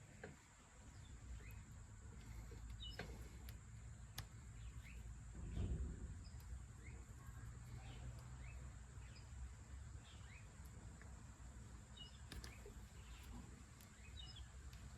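Faint outdoor background of birds chirping, over a low steady rumble, with a few sharp clicks.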